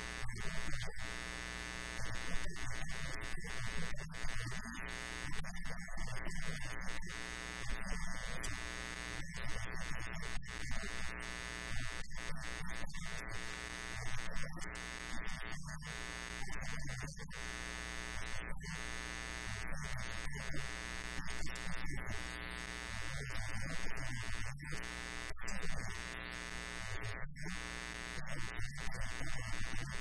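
A steady electrical buzz with many overtones, unchanging throughout, with faint shifting low sounds beneath it.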